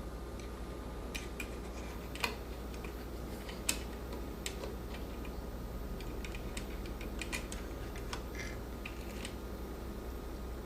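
Irregular light clicks and ticks of a 1949 Smith Corona portable typewriter's ribbon spools and metal ribbon guides being handled, with a couple of sharper clicks about two and three and a half seconds in.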